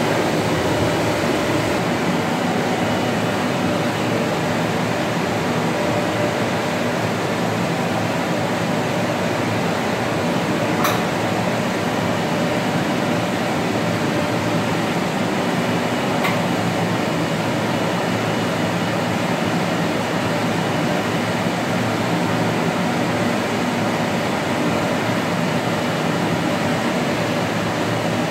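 Steady hum and hiss of an SPS Technoscreen automatic screen printing press and its sheet feeder running, with two short clicks around the middle.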